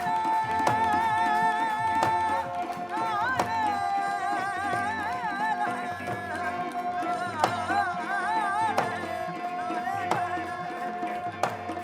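Live Sufi folk music: an ornamented, wavering melody held over a steady drone note, with hand-drum strikes keeping the beat.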